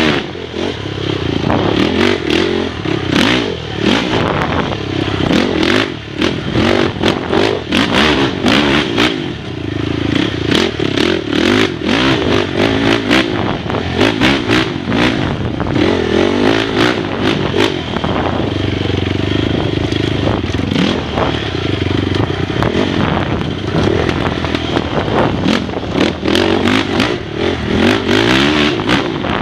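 Dirt bike engine heard close up from the rider's helmet camera, revving up and falling back again and again as the throttle opens and closes. Frequent sharp knocks and clatter come from the bike over rough trail.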